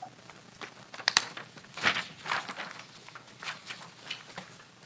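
Papers being handled and shuffled at a desk: a scattered series of short rustles and light knocks with quiet room tone between them.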